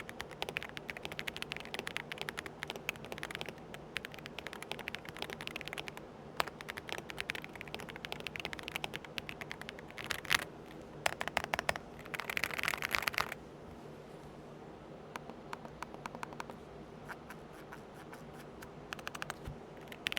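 Typing on a Transformers 101-key mechanical gaming keyboard with clicky switches: a rapid run of key clicks, with a few fast flurries of presses midway, then slower, scattered keystrokes near the end.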